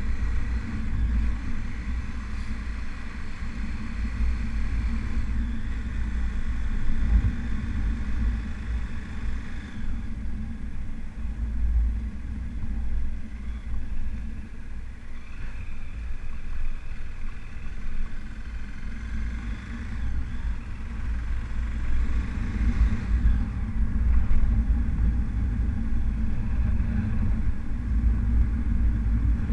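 Motorcycle engine running while being ridden, with steady wind rumble on the microphone; the engine note rises and falls a few times with the throttle.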